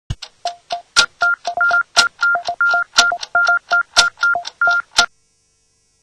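Electronic TV news-channel ident: a quick rhythmic run of sharp clicks and short beeps on two pitches, about four a second, stopping abruptly about five seconds in.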